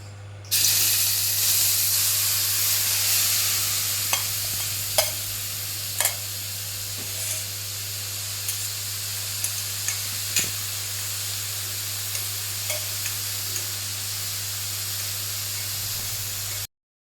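Grated carrots dropped into hot ghee in a pan, sizzling loudly from about half a second in and settling into a steady frying hiss. A spoon stirring them now and then clicks against the pan.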